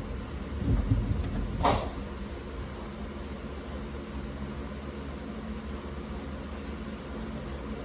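A few low thumps and one sharp knock about two seconds in, as someone moves off across the boat, then a steady low background hum.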